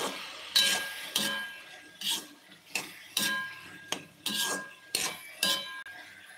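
A metal utensil stirring and scraping in a metal cooking pan, in short, uneven strokes about every half second to a second.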